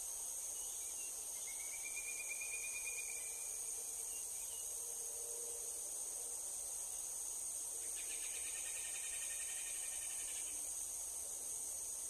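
Steady high-pitched chorus of crickets and other insects, with a short trill about a second and a half in and a second, longer pulsed trill around eight seconds in.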